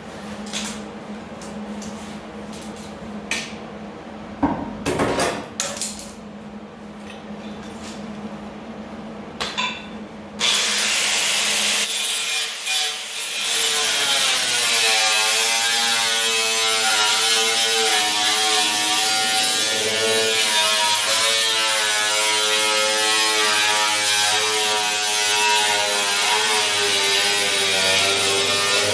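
A few light clicks and knocks of handling. About ten seconds in, an angle grinder starts and runs loudly against the sheet-steel rocker panel, its whine wavering in pitch under load, until it stops near the end.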